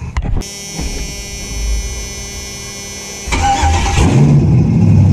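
Chevrolet 5.3 L LM7 V8 engine, managed by a Holley Terminator X ECU, cranking on the starter and catching a little over three seconds in, then settling into a steady idle.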